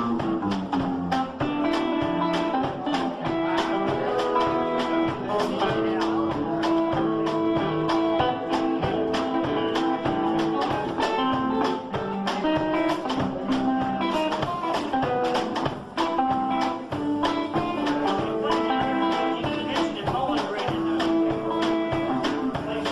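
Live instrumental music led by an amplified archtop hollow-body electric guitar, plucked chords in a steady rhythm under long held melody notes.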